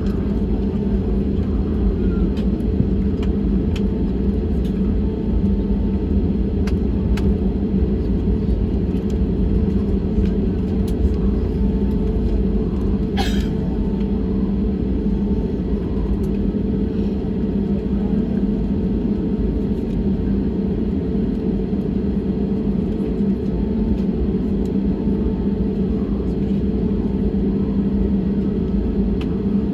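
Steady cabin rumble of an Airbus A320-family airliner taxiing, its jet engines at taxi power, with a steady low hum. There is one brief sharp click about 13 seconds in.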